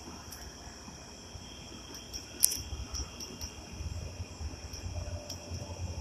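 Insects, likely crickets, chirping steadily in the background, with a few sharp clicks; the loudest click comes about two and a half seconds in.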